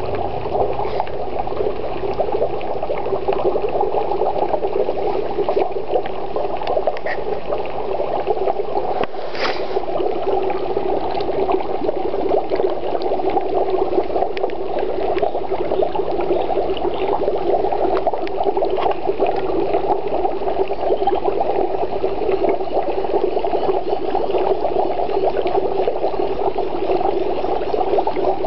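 Dry ice bubbling in a plastic bucket of water: a steady, continuous gurgling churn as the ice gives off fog.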